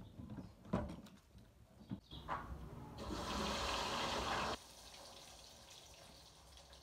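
Dishes and a mug knocking and clinking at a kitchen sink, then a tap running for about a second and a half before it is shut off abruptly.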